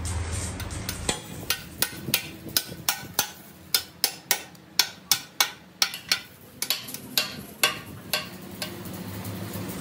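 Hammer driving a steel chisel against a truck rear axle housing flange: a steady run of sharp, ringing metal-on-metal blows, about three a second, that stops near the end.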